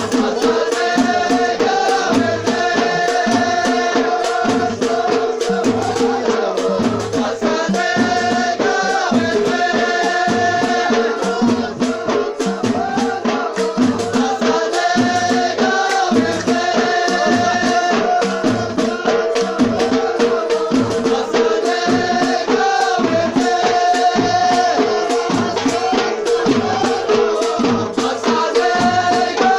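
Folk music: voices singing repeated melodic phrases over a steady hand-drum beat with rattling percussion and a held droning tone.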